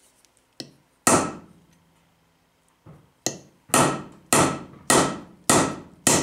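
Hammer blows on a hand-held hardened tool-steel cold punch, driving a hole through steel plate cold. There is a light tap, a heavy strike about a second in, then after a pause a steady run of strikes about two a second, each with a short metallic ring.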